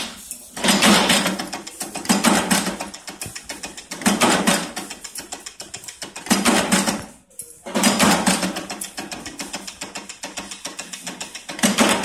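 Small stamping press clattering in repeated bursts every one and a half to two seconds as it works small metal parts, with a rapid faint ticking between the bursts.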